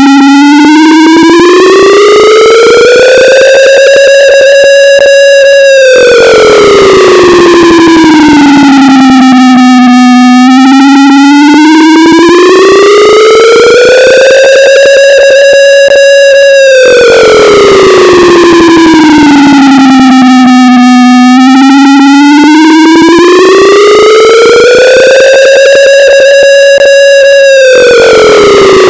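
Air raid siren, pitched down and boosted until it distorts, wailing slowly up and down: each wail rises over about four seconds, holds for a couple of seconds, then falls, about three times in all.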